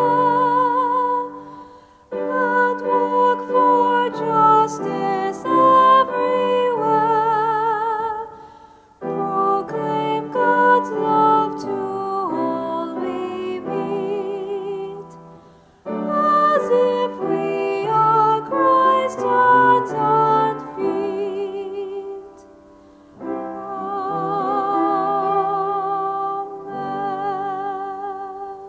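A solo singer with strong vibrato sings a slow, sacred-sounding song over piano accompaniment, in phrases of about six seconds with short breaks between them.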